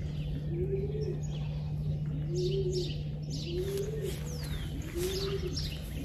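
Racing pigeons cooing, a low coo that rises and falls, repeated about once a second, with high chirps from other birds and a steady low hum underneath.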